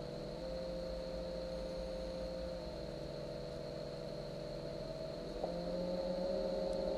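ROV's electric thrusters running with a steady whining hum, several tones that shift slightly in pitch as the motors change speed, over a low rumble and a faint high tone.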